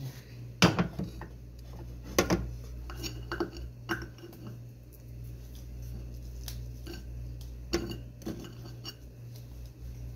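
Metal cookware clattering on a gas stove: a small saucepan handled and set down on the burner, giving several sharp knocks, the loudest about a second in, over a steady low hum.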